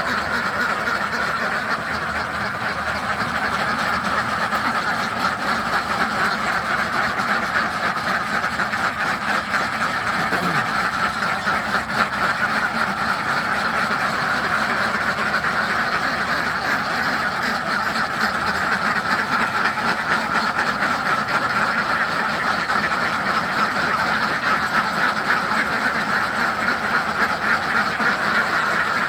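A flock of farm ducks quacking continuously, many calls overlapping into a dense, unbroken chatter.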